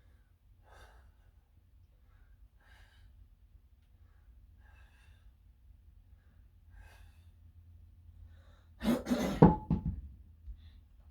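A person breathing hard from weightlifting exertion, a breath about every two seconds, then a loud, strained grunting exhale lasting about a second near the end.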